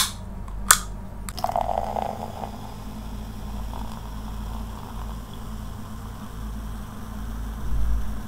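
A can of Coke cracked open, with two sharp clicks under a second apart as the tab is pulled, then the cola poured into a plastic tumbler with a steady fizzing hiss.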